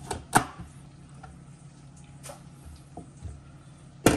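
A few sharp clicks and knocks from kitchen utensils and vegetables being handled, the loudest about a third of a second in and again near the end, over a steady low hum.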